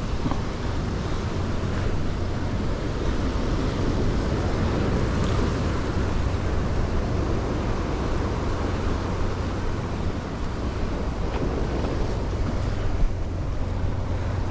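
Sea surf washing against shore rocks in a steady rush, with wind buffeting the microphone as a low rumble.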